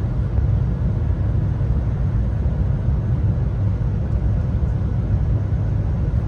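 Steady low rumble of a moving vehicle, with no clear events or changes.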